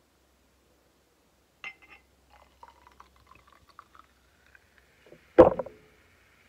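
Naturally carbonated homemade lemonade poured from a bottle into a glass flute: a light clink of glass, then the pour, its pitch rising as the flute fills. A loud knock comes a little after five seconds, and the foam fizzes steadily.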